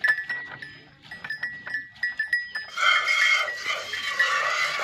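Hand-milking a buffalo into an aluminium bucket: quick squirts of milk strike the metal pail, each with a short metallic ping. A little before the middle, a louder, steady hissing of the milk streams takes over.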